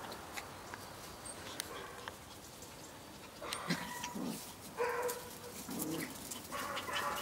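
Chihuahuas whining and yipping: a run of short calls that starts about halfway through.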